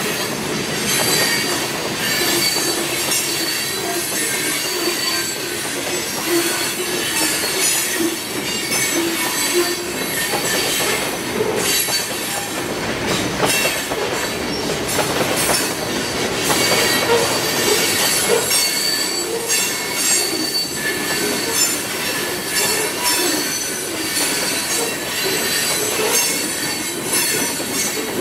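Freight train rolling along, its steel wheels squealing against the rails over a steady rumble and clatter of the cars. The squeal and rumble keep on without a break.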